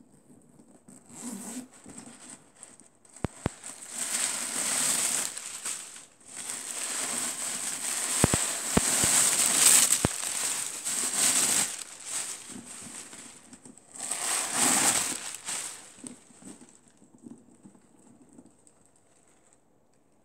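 Tissue paper stuffing rustling and crinkling as it is handled and pulled out of a leather handbag, in several bursts that are loudest towards the middle and again a little later, with a few sharp clicks in between.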